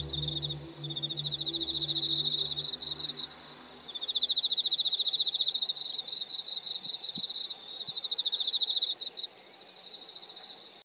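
Insects trilling: a high, rapidly pulsed trill in phrases of a couple of seconds with short breaks between them. Low, soft sustained music tones fade out over the first three seconds.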